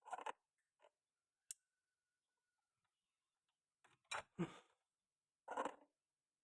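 Near silence broken by a few faint clicks and short clattering knocks of handling: one at the start, a sharp click about a second and a half in, and two louder clatters near the end.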